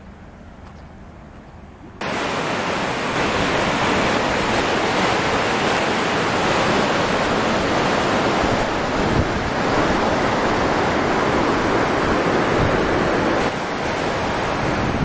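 Kunhar River rushing fast: a loud, steady wash of running water that sets in suddenly about two seconds in, after a quieter start.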